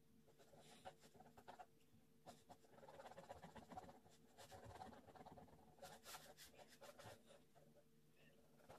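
Faint scratching of a ballpoint pen on paper in many short, quick strokes as a sketch is drawn and shaded.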